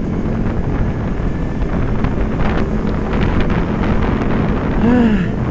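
Wind buffeting a helmet-mounted microphone over the steady running of a Honda CBR250RR's parallel-twin engine cruising at about 50 km/h.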